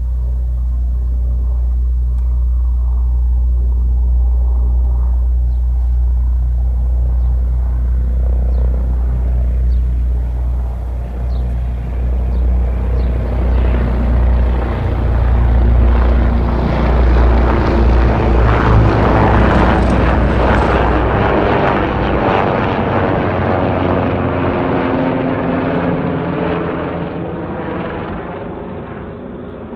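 Helicopter flying past: the rotor beat and turbine grow louder, peak about two-thirds of the way through, then fade away.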